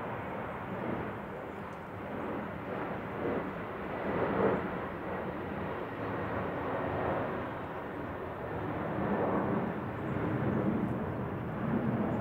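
Distant jet noise of a Boeing 787-9 airliner at cruising altitude: a steady, rushing rumble that swells and eases a little, loudest about four seconds in.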